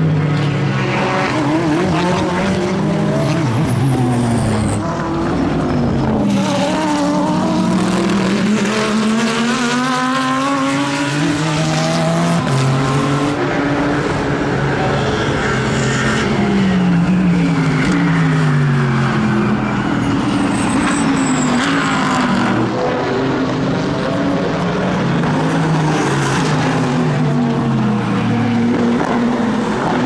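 Mercedes-AMG GT3 race cars' naturally aspirated V8 engines passing at racing speed over several passes. The engine note climbs through upshifts and drops in runs of downshifts.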